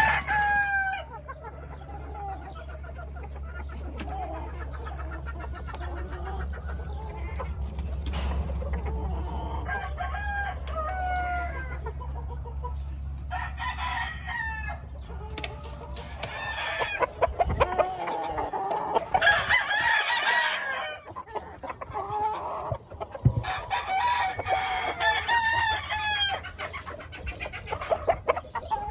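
Gamecock roosters crowing and clucking, with calls overlapping and coming in waves that are loudest in the second half.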